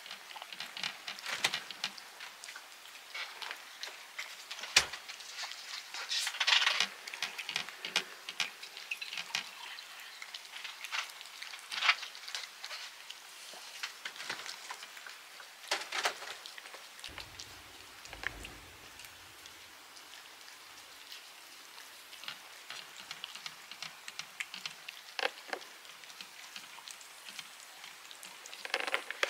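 Two domestic cats eating meat treats from small plates: a steady irregular patter of wet lip-smacking, licking and chewing clicks, with a few louder sharp clicks.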